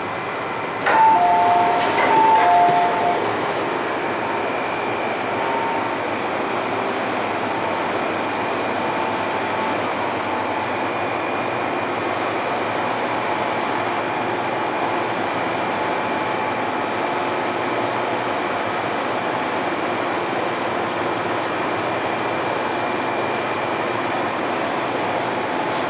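MTR M-Train interior: the door-closing warning chime beeps in alternating pitches and the doors shut about a second in, then the train moves off and runs with a steady traction-motor hum and wheel rumble.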